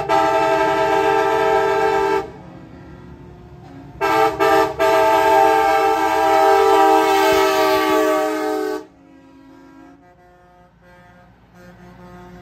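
Semi truck air horns sounding in a steady chord of several tones: one blast running until about two seconds in, then after a short gap two quick toots and a long held blast that cuts off suddenly about nine seconds in. Truck engines and traffic rumble more quietly afterwards.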